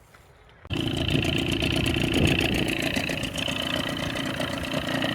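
Small boat's outboard motor running steadily with a rapid pulsing beat; it comes in abruptly about a second in.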